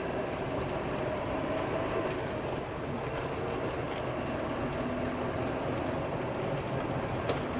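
Steady road and engine noise heard inside a moving car, with a single sharp click near the end.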